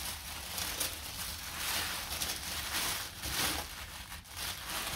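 Tissue paper rustling and crinkling as hands unwrap an item, in uneven swells.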